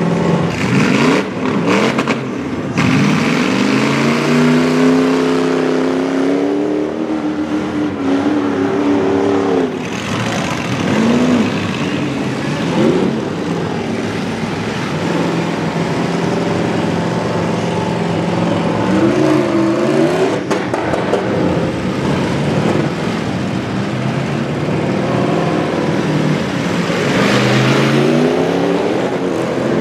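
Several demolition derby pickup trucks' engines revving, their pitch rising and falling again and again, with the crash of metal bodywork as trucks ram each other.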